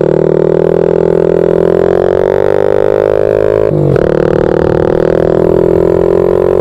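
Honda Z50R pit bike's small single-cylinder four-stroke engine running hard under throttle, its pitch slowly climbing. Near four seconds in, the drone breaks briefly and drops in pitch, then builds again.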